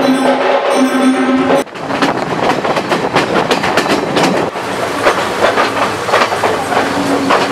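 Drumming and music play for about the first second and a half. Then a passenger train is heard from on board, its wheels clattering steadily over the rail joints.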